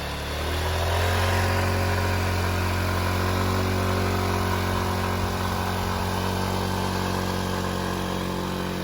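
Motor scooter's small engine running under load on a steep uphill climb, revving up about a second in and then holding a steady pitch.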